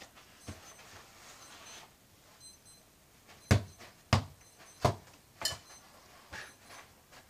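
Football being juggled by foot: four sharp thumps of boot on ball, about two-thirds of a second apart, a few seconds in, with a few lighter touches before and after.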